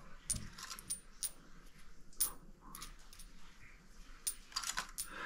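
Coins clinking together as they are picked up and stacked in the hand to be counted: a faint, irregular scatter of light metallic clicks and chinks, the loudest about two seconds in.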